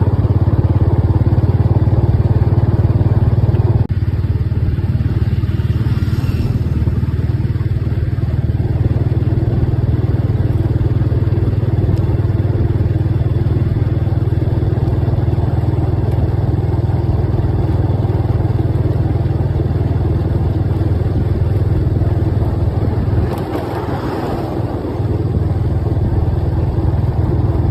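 Motorcycle engine running steadily on the move, a continuous low drone that eases off briefly near the end and then picks up again.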